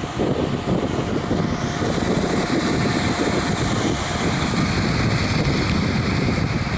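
Strong wind buffeting the microphone over the steady rush of sea and surf, with a faint steady hum under it.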